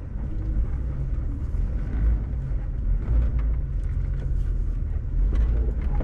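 Jeep Wrangler TJ's engine running at low revs as the 4x4 crawls slowly over rock, a steady low hum with a few small clicks and crunches from the tyres on the stones.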